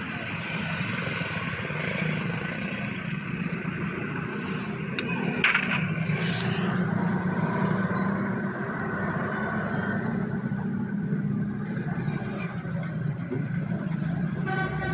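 An engine running steadily at idle, a low continuous hum, with one sharp click about five seconds in.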